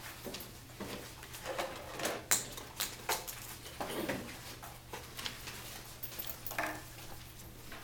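Students cutting paper with scissors and handling paper: irregular snips, clicks and rustles in a small classroom.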